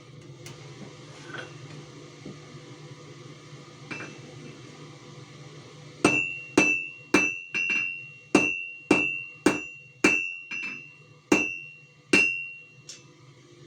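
Blacksmith's hammer striking metal on an anvil, about a dozen ringing blows at roughly two a second, starting about six seconds in and stopping near the end. The first half is only a low steady hum.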